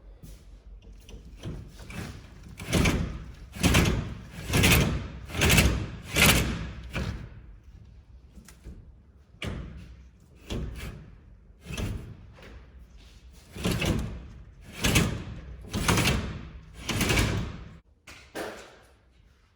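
New sickle knife sections being shoved through the cutterbar guards of a John Deere 630F HydraFlex grain head: a series of metallic scraping strokes about once a second, each swelling and dying away in about half a second, with a short pause midway.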